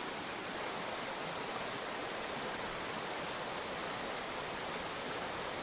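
Shallow river flowing over a stony bed: a steady, even rush of running water.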